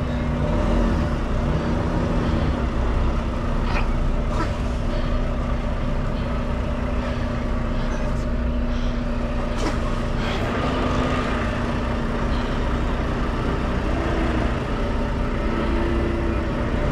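Semi truck's diesel engine running steadily at low revs, heard from inside the cab as the rig is slowly maneuvered into place, with a few faint clicks.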